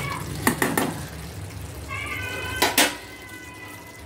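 Spatula knocking against a pan as cauliflower curry is stirred: two pairs of sharp knocks, one about half a second in and one near the three-second mark, over a low steady hum. From about two seconds in, a faint steady high tone sounds underneath.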